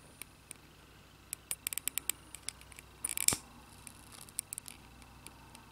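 Small clicks and taps of a metal pocket lighter handled close up while the end of the monofilament line is melted into a blob, with one louder click and a brief hiss about three seconds in.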